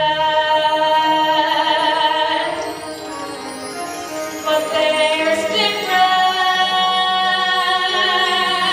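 Musical-theatre singing with accompaniment: voices holding long notes with vibrato, two phrases with a dip in loudness between them.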